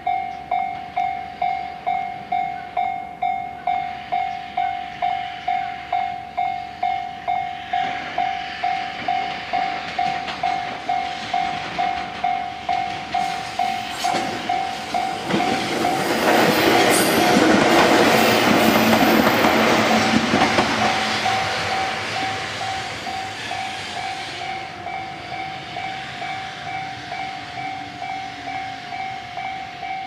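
Japanese level-crossing alarm bell ringing steadily, about two dings a second, as a JR 205-1000 series two-car electric train runs over the crossing. The train noise builds from about eight seconds in, is loudest from about sixteen to twenty-one seconds, and fades away while the bell keeps ringing.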